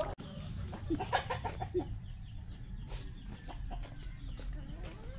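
Chickens clucking, a cluster of short calls about a second in and a few more later, over a low steady rumble.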